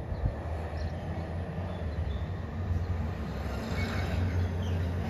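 Rear-loader garbage truck's diesel engine running as the truck rolls closer, a steady low hum that grows gradually louder.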